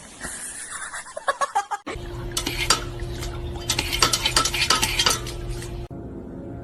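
Rapid clinking and clattering, many light hard impacts in quick succession, over a steady low hum.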